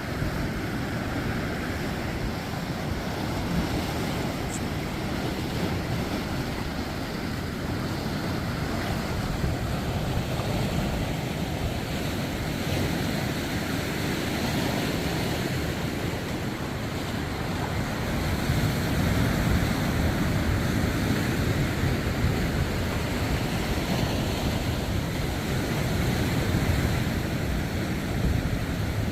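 Winter sea surf: waves breaking and washing ashore in a continuous rumbling wash, swelling a little louder about two-thirds of the way through, with wind buffeting the microphone.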